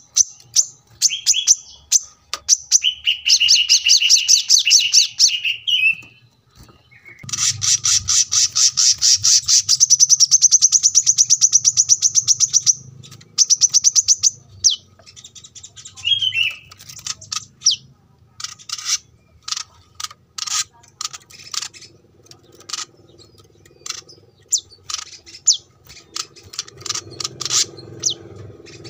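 Male brown-throated sunbird (kolibri kelapa) singing hard: strings of sharp, high chirps broken by long, rapid trills, the longest running about five seconds.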